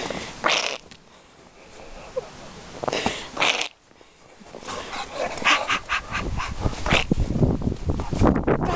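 Shar-pei dog playing and digging in snow, with short breathy noises and quick scraping strokes. A low rumble builds from about two-thirds of the way through.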